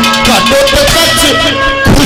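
Instrumental folk music accompaniment for a Haryanvi ragni: drums beating under a melody instrument holding steady notes, with no singing, and a strong drum stroke near the end.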